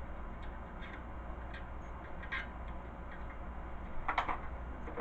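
Light clicks and small knocks of parts being handled during assembly of a Gold's Gym 400 Ri recumbent exercise bike. There are a few faint ones early and a louder brief clatter about four seconds in, over a steady low background hum.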